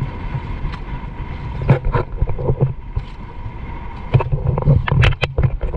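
Wind buffeting the microphone on a small fishing boat, with a run of sharp knocks and thumps, most of them bunched about four to five seconds in.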